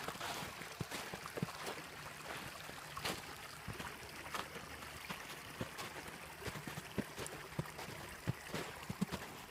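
Creek water trickling over low rock dams between small pools, a steady rush with many short clicks scattered through it.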